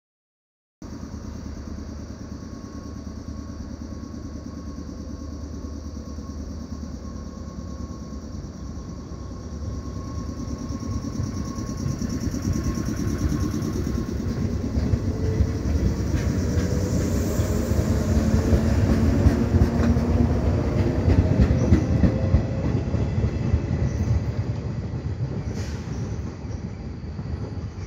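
A 113 series electric multiple unit pulling away from a station. It hums steadily at first, then its motors whine upward in pitch as it gathers speed and gets louder, with wheels clattering over rail joints as it passes. It fades slightly near the end as it draws away.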